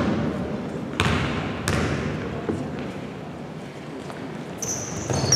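Basketball bouncing on the hardwood court three times as it is dribbled. Near the end, sneakers squeak sharply on the floor as players move.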